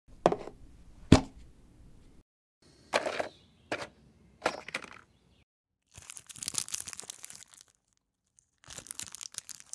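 Clear plastic case latch clicking open with two sharp snaps, then a few short clatters of brushes and pencils being handled inside the case. In the last few seconds comes a longer crinkling of clear plastic wrap being peeled off a sheet of paper, in two stretches. The parts are separated by dead silence.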